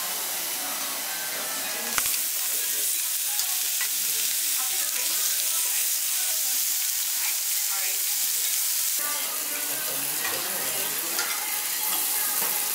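Sliced meat sizzling steadily on a Korean barbecue tabletop grill, with faint ticks now and then as tongs move it. The sizzle shifts abruptly in level about two seconds in and again near nine seconds.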